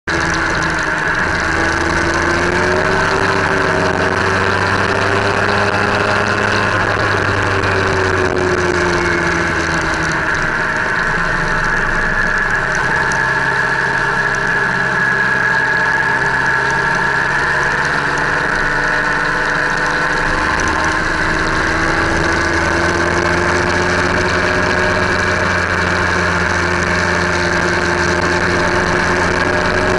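Vehicle engine running while under way, with steady road and wind noise. The engine note rises and falls with speed, easing off in the middle and pulling up again about two-thirds of the way through.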